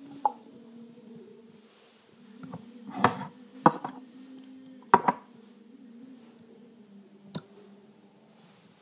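Toy slime and its small plastic container being handled, giving a handful of short clicks and wet squelches, the loudest near the middle, over a steady low hum.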